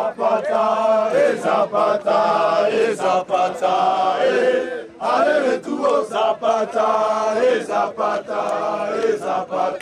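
A group of young people chanting a rhythmic song together in repeated phrases, with a short break about five seconds in.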